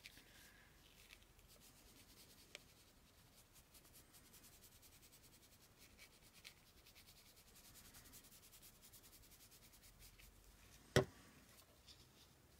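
Faint rubbing and light scratching of fingers pressing and smoothing glued paper onto a journal page, with one sharp tap about eleven seconds in.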